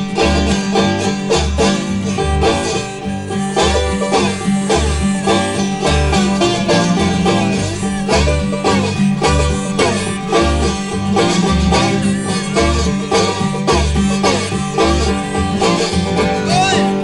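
Live acoustic bluegrass: a banjo picking rapid rolls over a strummed acoustic guitar, with an upright bass plucking a steady, even beat underneath.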